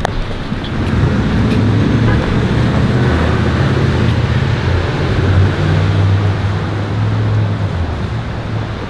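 Street traffic: a motor vehicle's engine running close by with a low, steady hum, over general road noise; it eases off near the end.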